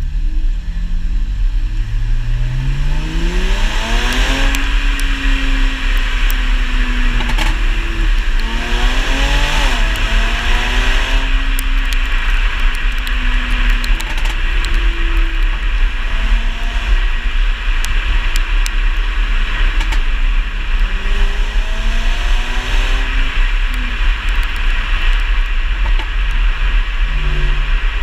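Mercedes-Benz C350's 3.5-litre V6 with a Kleemann ECU tune pulling hard, the revs climbing for about four seconds and again briefly near ten seconds, then easing off. Exhaust pops and crackles are scattered on the overrun, coming a couple of seconds after the throttle is lifted; the tune's crackle delay is still too long.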